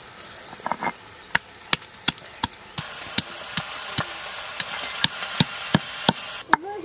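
Stone pestle pounding garlic, ginger and green chillies on a flat stone grinding slab (sil-nora): sharp stone-on-stone knocks, about two to three a second, starting about a second in.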